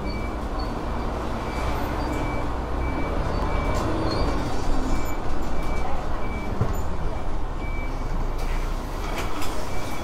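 Bus being driven: steady low engine rumble and road noise, with a faint short high beep repeating at an even pace a little over once a second, and scattered clicks and rattles.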